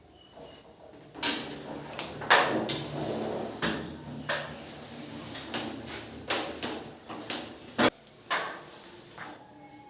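Irregular knocks, clatters and scraping of hard objects being handled and set down, with one sharp knock just before eight seconds in standing out as the loudest.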